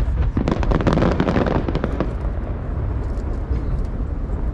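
Aerial fireworks bursting in a rapid run of sharp bangs and crackles for about two seconds, then thinning out to a few faint pops over a steady low rumble.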